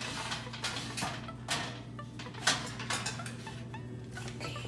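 Metal donut pans scraping and knocking against a wire oven rack as they are slid into the oven, a string of clanks with the loudest about two and a half seconds in.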